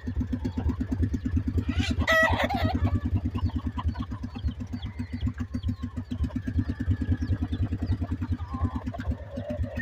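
Small engine running steadily with an even low throb. Over it, gamecocks in the pens cluck, and one crows briefly about two seconds in.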